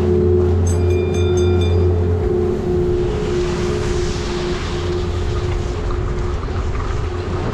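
Doppelmayr detachable quad chairlift machinery running with a steady hum and whine. A low drone cuts off about two seconds in, and a brief rapid high-pitched beeping sounds about a second in.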